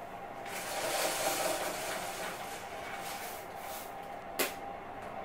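A roller blind being lowered over a window by its bead chain: a rushing, rustling run of about four seconds that ends in one sharp click as it stops.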